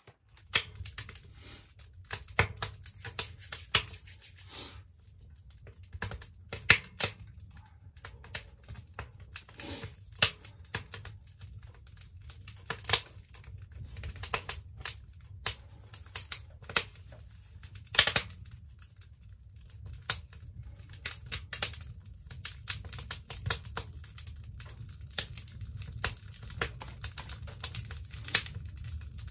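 Wood crackling and popping inside a barrel-style wood stove: irregular sharp pops over a low steady rumble.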